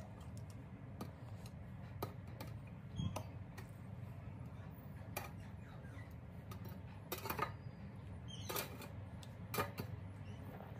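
Raw meat pieces being set down one by one on a ceramic plate: scattered light knocks and clinks, a few louder ones in the second half, over a steady low hum.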